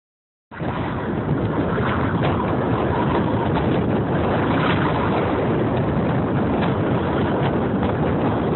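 Steady rushing wind noise on the microphone, starting abruptly about half a second in, over a Mercedes 300D sedan driving slowly on ice.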